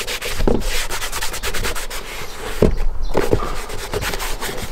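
Cloth rubbing over the leather of a work boot, wiping the surface with stain remover: a steady scratchy rubbing with a few brief louder strokes.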